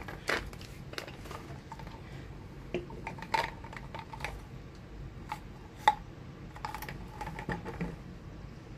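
Scattered small plastic and metal clicks and clinks as screwdriver bits are handled in a plastic bit holder and fitted into a screwdriver handle, some with a short metallic ring, the sharpest about six seconds in.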